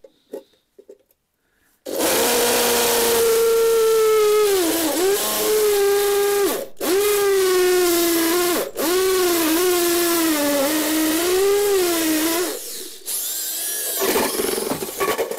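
Electric drill boring into a metal cash box with a metal-cutting bit. The motor whine starts about two seconds in and sags in pitch each time the bit bites under pressure. It stops briefly twice and cuts off about twelve seconds in, followed by a short, rougher stretch near the end.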